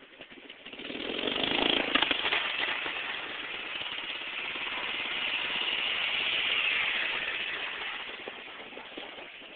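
High-performance riding lawnmower engine running hard out of sight, growing loud about a second in, easing off, then swelling again and fading away near the end.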